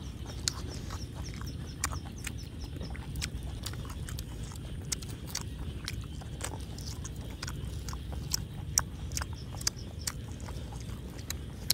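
Close-miked chewing and wet mouth clicks of people eating boiled pig's head and cheek meat by hand, the clicks coming irregularly several times a second over a low steady rumble.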